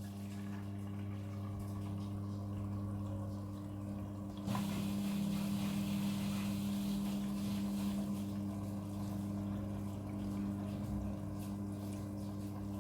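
Midea front-loading washing machine filling with water for its prewash: a steady hum from the inlet valve or pump under rushing water, with the water flow growing louder about four and a half seconds in.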